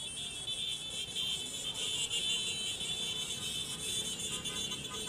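Motorcycle caravan riding past, engines running under a steady high-pitched din. Near the end a horn starts beeping in quick toots, about three a second.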